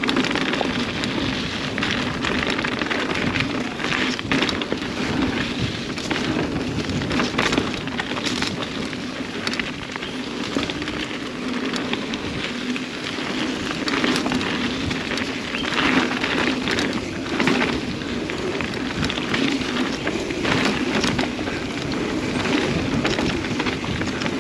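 Mountain bike riding down a dirt trail: a continuous rush of tyre and trail noise, crackling with many small knocks and rattles from the bike over rough ground.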